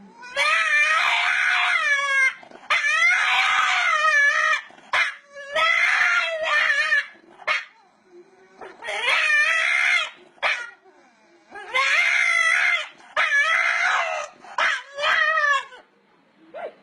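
A dog howling and whining in a series of about seven drawn-out, wavering calls, each a second or two long, with short pauses between them.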